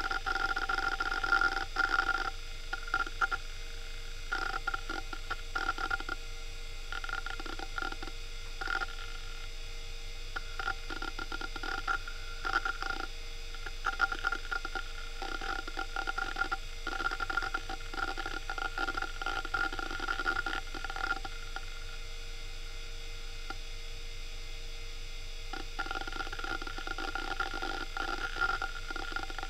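Western Digital Caviar 21200 hard drive seeking while loading Windows 98: its heads click and chatter irregularly over a steady whine and hum. The seeking eases for a few seconds about three quarters of the way through, then picks up again.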